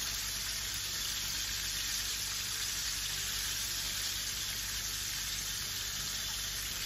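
Floured mackerel pieces frying in hot vegetable oil in a pan, a steady sizzle. The fish is nearly done and crisping up on a medium flame.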